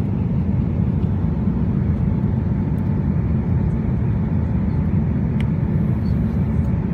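Steady cabin noise of a jet airliner in flight after take-off: a dense low rumble of engines and airflow, with a faint steady tone above it.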